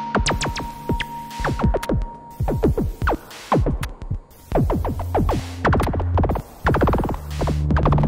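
Dark ambient synthesizer music played live on hardware synths: quick pitch sweeps follow one after another over low droning tones. The drone drops out about two seconds in and swells back near the end.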